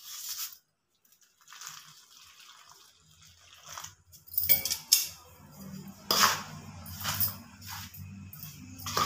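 Hot water poured from a vessel onto rice flour in a bowl, a soft pouring hiss, followed from about halfway by a ladle stirring through the wet flour, with repeated scrapes and clinks against the bowl over a steady low hum.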